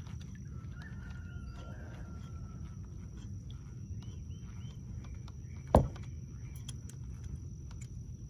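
A single loud, sharp knock on the kayak a little under six seconds in, over a steady low rumble, with faint high chirps now and then.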